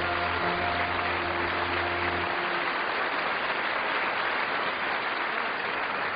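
Studio audience applauding steadily, with the last held notes of the theme music ending about two seconds in.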